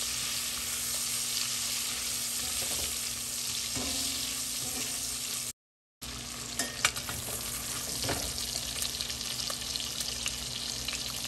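Sliced andouille sausage sizzling as it browns in oil in an enamelled cast-iron Dutch oven, with a metal spoon stirring and knocking a few times against the pot. The sound cuts out abruptly for half a second in the middle.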